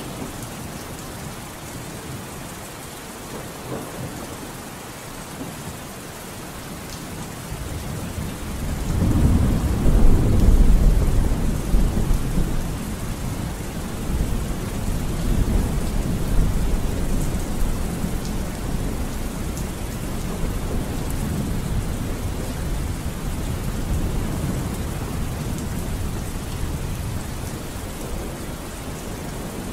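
Steady rain, with a long low roll of thunder that builds about a third of the way in and slowly dies away.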